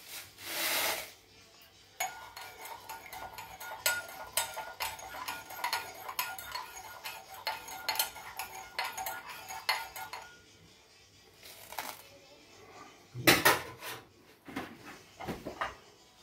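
A metal spoon stirring in a ceramic bowl: a rapid run of clinks and scrapes against the bowl that lasts about eight seconds. Near the end comes a louder knock of crockery as the bowl is lifted from its saucer.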